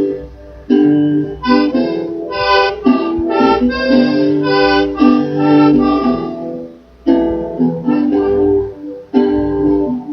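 Live band playing an instrumental passage with no singing; the chords break off briefly a few times.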